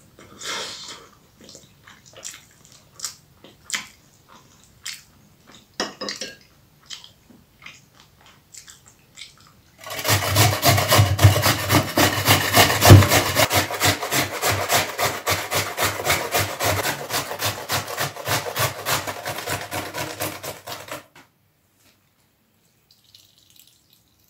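Peeled raw potato being grated on a metal box grater: fast, rhythmic rasping strokes that start about ten seconds in, run for about eleven seconds and stop abruptly. Before that come only scattered light clicks and taps.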